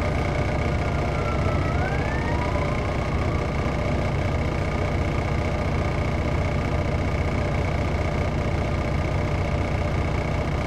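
Detroit Diesel Series 60 inline-six diesel of a 2001 MCI D4000 coach, heard from inside the bus, running steadily at idle. A faint short rising whistle comes in about two seconds in.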